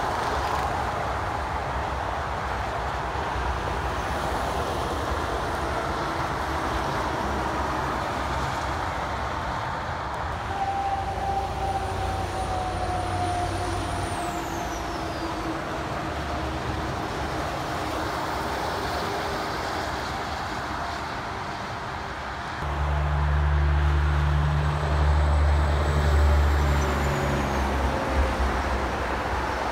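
Steady highway traffic noise from passing cars and trucks, with a whine sliding down in pitch as a vehicle goes by about halfway through. Near the end, a semi truck's diesel engine passes close, a loud low drone for about five seconds.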